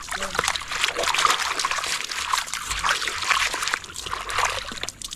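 Water trickling and splashing irregularly as a plastic toy is washed.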